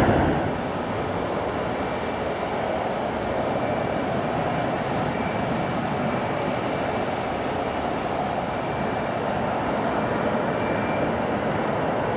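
Boeing 737-800 jet engines. The loud noise of a departing airliner drops off sharply about half a second in. A steady, more distant jet noise with a faint high whine follows, from an airliner on approach.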